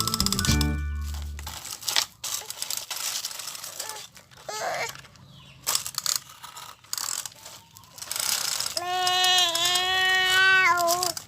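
A tune that ends about a second in, then scattered light knocks and clicks, and near the end a small child's drawn-out wavering cry lasting about two seconds, the loudest sound here.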